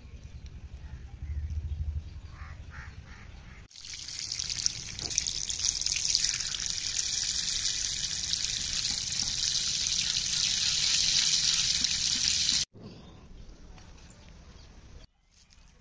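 A stream of water splashing onto sweet limes in a plastic colander as they are rinsed: a steady hissing splash that starts a few seconds in and cuts off abruptly near the end.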